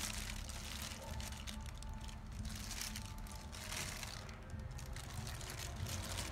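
A thin plastic food glove crinkling, with wet squishing, as a hand rubs wet marinade paste into raw fish in a mortar. Faint music runs underneath.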